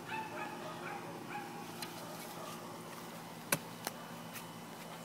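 Faint, short, high-pitched animal whimpers in the first second and a half, over a low steady hum. About three and a half seconds in come two sharp clicks less than half a second apart.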